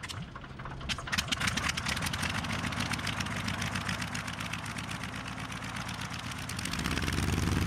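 Aero engine of a Fokker Dr.I replica triplane running with the propeller turning: a rapid, even stream of firing pulses that grows a little louder near the end.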